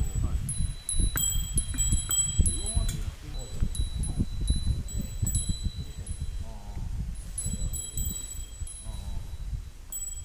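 A small metal bell jingling in short, irregular rings, over a low rumble.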